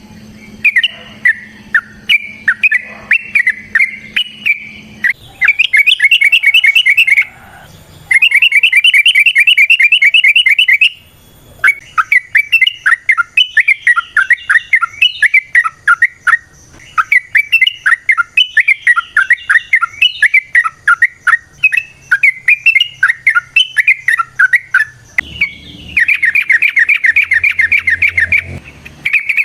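Yellow-vented bulbul singing: fast rattling trills of rapidly repeated notes, broken up by longer strings of varied, choppy chattering phrases.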